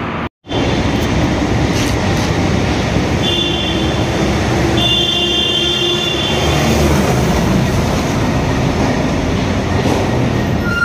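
A truck driving past through a long concrete road tunnel, its engine and tyre noise filling the tunnel as a loud, steady rumble. A high, thin squeal sounds twice, about three and five seconds in.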